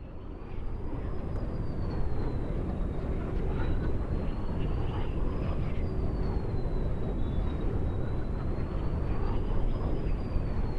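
Wind sound effect: a steady low rumble of wind with a thin high whistle above it that slowly rises and falls in pitch three times, swelling up over the first two seconds.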